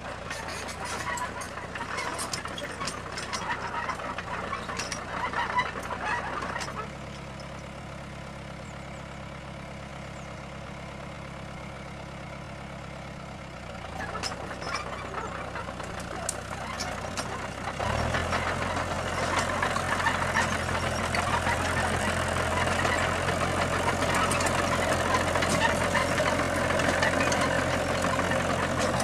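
Tractor engines running across a series of separate clips, the sound changing abruptly about 7, 14 and 18 seconds in. In the middle stretch a quieter engine runs with an even, rapid beat; from about 18 seconds a louder, steady engine note takes over.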